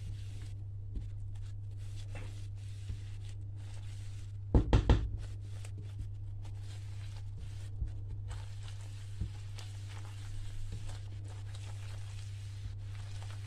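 Silicone spatula stirring flax seeds through boiling honey in a frying pan, with scattered faint scrapes and ticks, and three quick loud knocks a bit before five seconds in, over a low steady hum.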